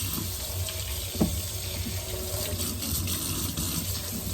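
Kitchen tap running into a sink while hands are washed under it, with one short knock about a second in.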